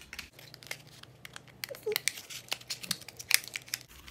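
Small cardboard cosmetics box being handled and opened by hand: crinkling and tearing of packaging with scattered sharp clicks and crackles.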